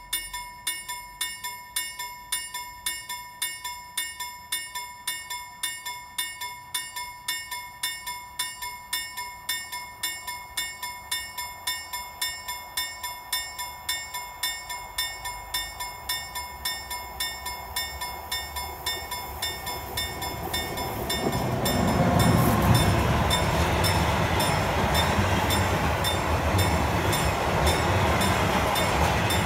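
Swedish level-crossing warning bell dinging about twice a second. From about 18 seconds in an SJ Regional train approaches, and from about 21 seconds it passes over the crossing with a loud rumble of coaches on the rails, the bell still ringing over it.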